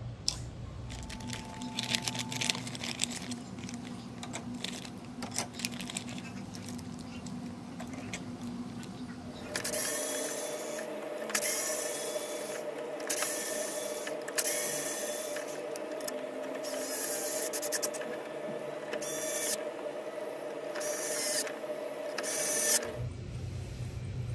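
Handling clicks at first, then from about ten seconds in an electric screwdriver whirs in a string of short bursts for roughly thirteen seconds, driving the screws of an RC crawler's plastic chassis skid plate.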